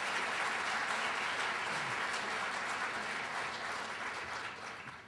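A large audience applauding, the clapping dying away near the end.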